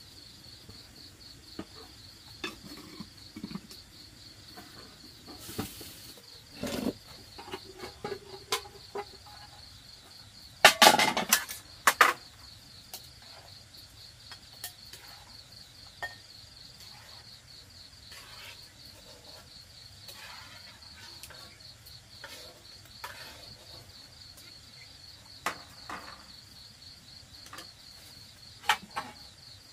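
Crickets chirring steadily in the background, with scattered clinks and knocks of a metal wok, pot lids, a ladle and bowls as food is dished up. The loudest is a quick run of metal clanks about eleven seconds in.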